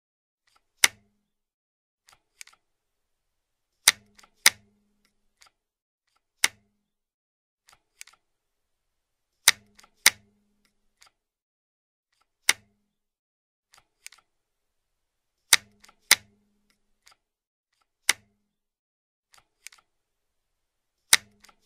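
Bicycle gear shifter clicking as it changes gear. Sharp clicks come every few seconds, singly or in quick pairs about half a second apart, with fainter clicks in between.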